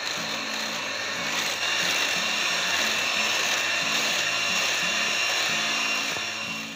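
Electric hand mixer running steadily, its beaters whisking beaten eggs and oil in a glass bowl, with a steady high motor whine; it stops near the end.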